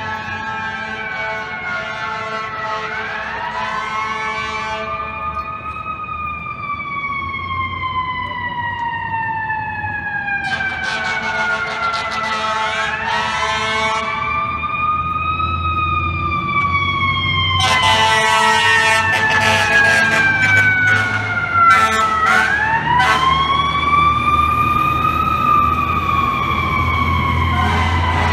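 Fire engine siren wailing in slow cycles, three times: each time the pitch climbs over a couple of seconds, then slides slowly back down. A truck engine's low rumble lies underneath and gets louder toward the end.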